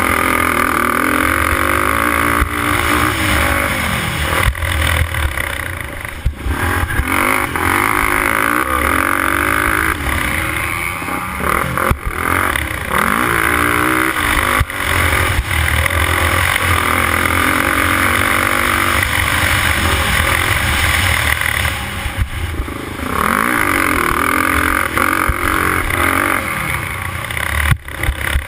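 Racing quad's engine running hard, its pitch climbing and falling as the throttle is worked through corners and straights, with brief drops off the throttle several times, heard close up from a helmet camera.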